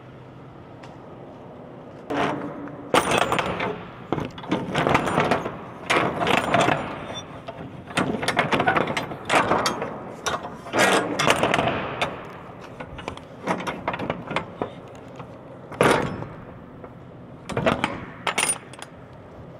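Loud, irregular metallic clanking and rattling in quick clusters, with one sharp bang later on, over a steady low hum.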